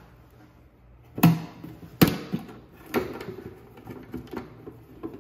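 Snap latches on a grey ABS plastic electrical enclosure being unclipped and the hinged lid worked open: three sharp plastic clicks about a second apart, the second loudest, then lighter clacks and knocks of the lid and box being handled.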